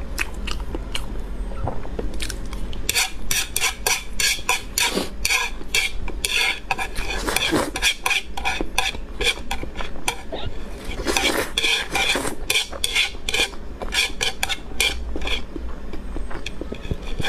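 Close-miked slurping and sucking of sauce-coated noodles straight off a plate, with chopsticks clicking and scraping against it. From about three seconds in it becomes a quick, busy run of short wet clicks.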